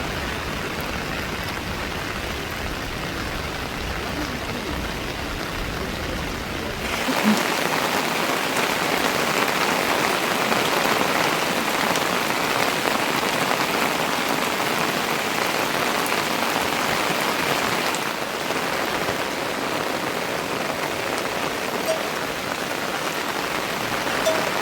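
Heavy rain falling steadily. About seven seconds in the sound turns louder and brighter and loses its low rumble, then eases slightly near the end.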